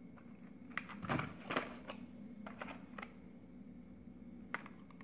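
Blister-carded Hot Wheels toy cars being handled and turned over: the cardboard backing cards and plastic bubbles crinkle and click. A cluster of clicks comes between about one and two seconds in, a few more around three seconds, and one near the end.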